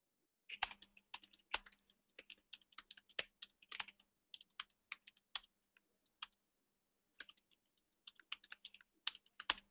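Faint typing on a computer keyboard: quick, uneven key clicks, with a pause of about a second two-thirds of the way through.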